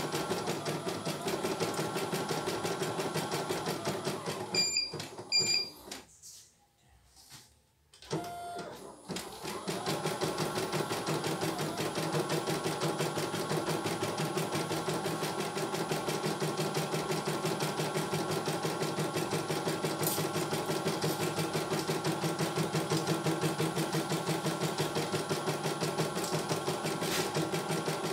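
CNY E900 computerized embroidery machine stitching with a fast, steady needle rhythm. About four seconds in it stops and gives two short high beeps, falls nearly silent for a couple of seconds, and then starts stitching again for the rest of the time.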